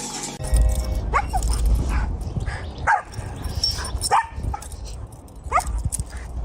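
A dog giving about five short, high yips or whines, with a low rumble underneath.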